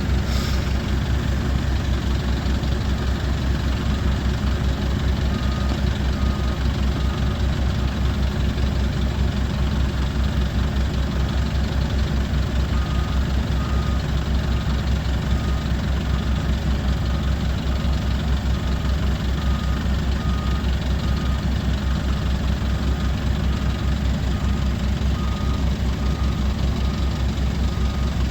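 Large truck engine running steadily with an even low throb. A faint, short, repeating high beep comes and goes in the background.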